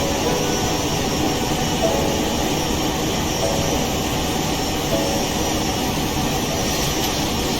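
Boeing 737 jet engines running with a steady, even rush of noise.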